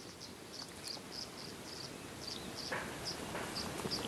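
Faint, short high-pitched chirps repeating about three times a second over quiet outdoor background, with a soft rustle about three seconds in.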